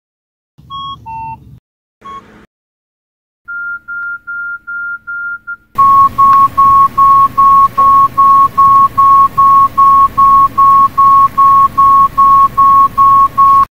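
Budget mobile phones' battery-empty alert beeps. First a falling two-note beep and a short beep, then a run of six short higher beeps. About six seconds in comes a loud run of identical beeps, about three a second, over a faint hiss.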